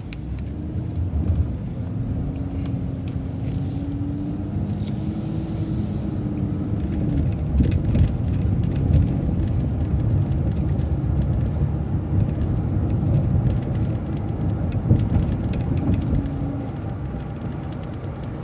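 Transit bus driving along after a turn: engine and road rumble, with a drivetrain whine that rises slightly in pitch in the first few seconds as the bus picks up speed.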